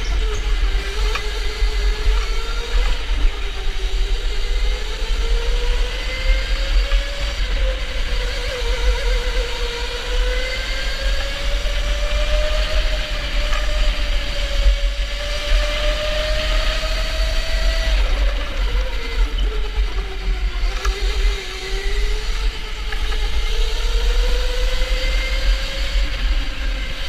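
Electric go-kart motor whining, heard from a camera mounted on the kart. The pitch climbs as the kart speeds up and sinks as it slows, with a deep dip about three-quarters of the way through, over a steady low rumble of vibration.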